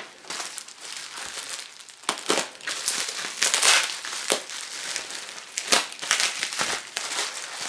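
Makeshift packing stuffing crinkling and rustling as it is pulled by hand out of a soft parcel, in irregular crackly bursts, loudest about three and a half seconds in.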